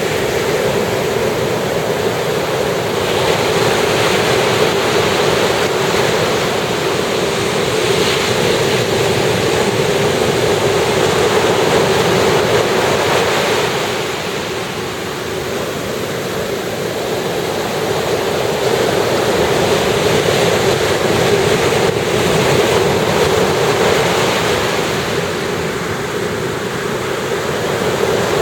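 Ocean surf breaking and washing ashore: a continuous rushing noise that swells loud for long stretches and eases off about halfway through before building again.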